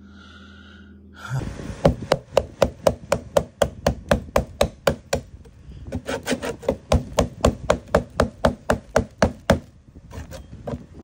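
Metal hand scraper scraping old silicone sealant off a pop-up camper roof in quick repeated strokes, about four or five a second, with a short pause midway.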